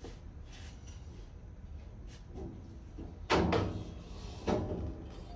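Two loud metallic clanks about a second apart, each ringing briefly, from a manual sheet-metal box and pan folder being worked by hand, over a steady low hum.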